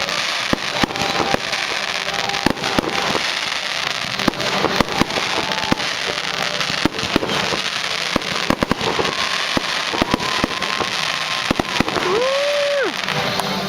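Fireworks display: a rapid, dense string of sharp bangs and crackles. Near the end a voice whoops as the crowd begins to cheer.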